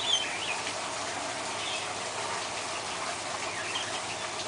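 Birds giving a few short, high chirps, the loudest right at the start, over a steady rushing of water.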